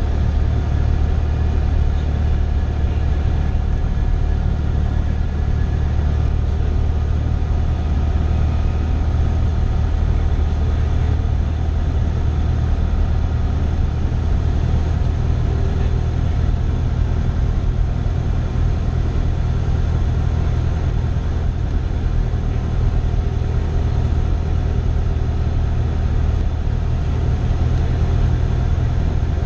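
Cessna 172's piston engine and propeller droning steadily inside the cabin, with a deep, even drone that does not change.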